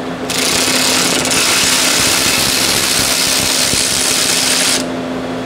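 A power tool runs in one steady, hissing burst that starts almost at once and cuts off suddenly after about four and a half seconds, taking out a second bolt.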